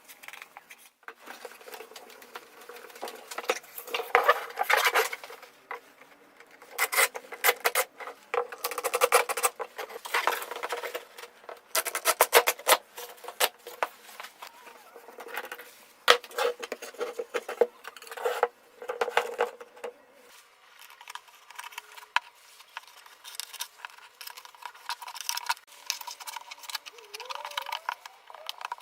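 Clattering and clinking of hard objects being handled, in dense runs of sharp knocks for most of the stretch, thinning to sparser, fainter clicks near the end.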